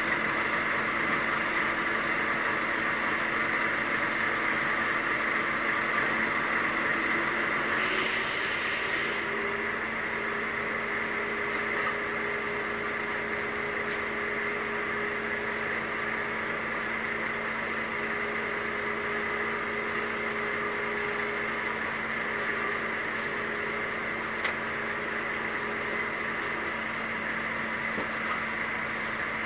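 Steady hum of an idling lorry heard from inside its cab, with a short hiss about eight seconds in and a faint steady tone that comes in then and fades near the end.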